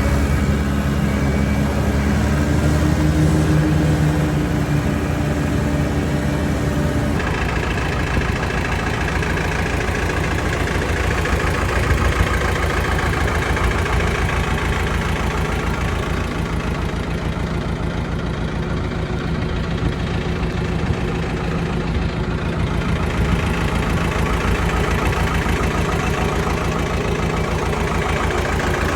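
Mahindra diesel tractor running steadily while mowing with a bush hog rotary cutter. About seven seconds in the sound changes, the clear engine tones giving way to a denser, rougher steady running.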